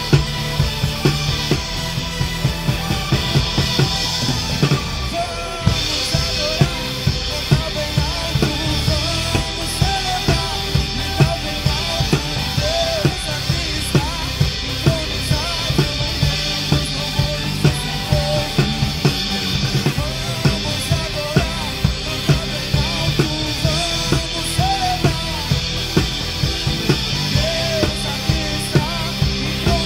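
A live band plays an instrumental passage. A Pearl Vision Birch drum kit keeps a steady beat with kick, snare and cymbals, over sustained bass and a wavering melodic lead line.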